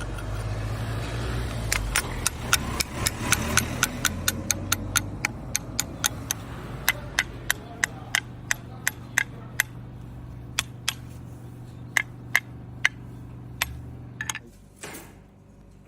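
Japanese plane (kanna) blade being sharpened on a whetstone: quick back-and-forth strokes with a sharp click at each one, about three a second, slowing and stopping near the end. A steady low hum runs underneath.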